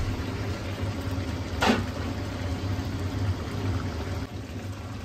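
Onion-tomato masala bubbling and sizzling in a large pot over high heat with freshly added raw chicken, a steady low hum underneath. One short knock about one and a half seconds in.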